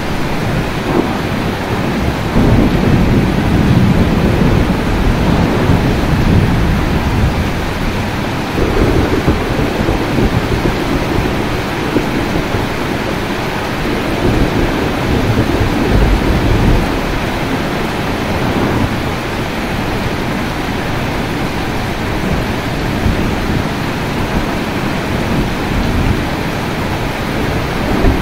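Steady heavy rain with thunder rolling in deep, swelling rumbles several times, each building and fading over a few seconds.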